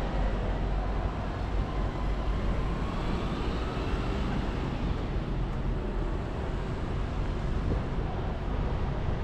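Steady city traffic rumble, with faint high tones gliding up and down a few seconds in.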